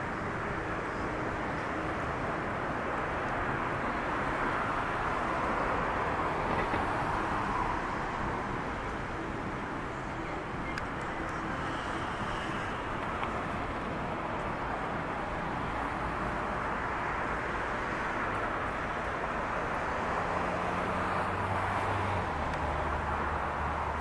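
Road traffic noise, swelling twice as vehicles pass, with a low engine hum near the end.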